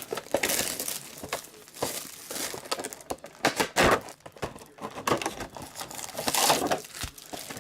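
Foil trading-card pack wrappers crinkling and tearing as packs are ripped open by hand, in irregular crackling rustles.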